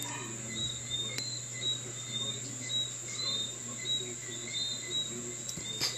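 Insects chirping in short calls repeated about every half-second, over a steady high whine and a steady low hum.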